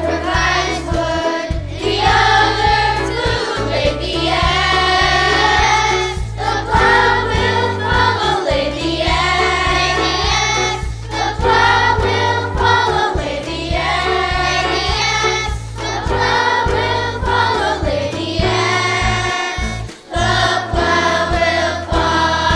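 A group of children singing a song together over an instrumental backing with steady low bass notes.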